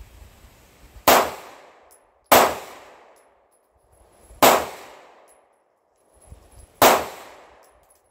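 Four single pistol shots from a Sig Sauer P226, fired slowly and unevenly spaced, each a sharp crack followed by an echoing tail of about a second.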